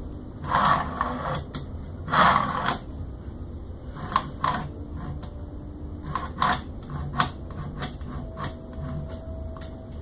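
Acrylic Y-axis bed of a Prusa i3 Pro B 3D printer pushed by hand along its smooth rods: two sliding rushes in the first three seconds, then a run of light clicks and knocks as it is moved back and forth. The bed is being hand-tested for smooth, free travel on its newly tensioned belt.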